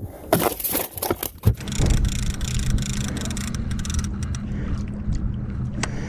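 A few knocks against the boat, then about a second and a half in a boat motor starts up and runs with a steady hum.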